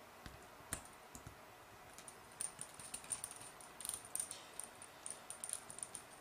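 Light metallic clicks and ticks from a small driver working the screws of a motor mount plate, loosening them so the plate can move. A few isolated clicks, then a quick irregular run from a couple of seconds in.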